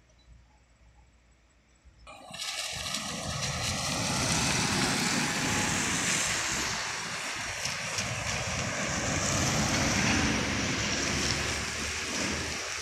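Box truck driving past on a bend: a loud rushing of engine and tyre noise over a low rumble, starting abruptly about two seconds in and loudest in the middle.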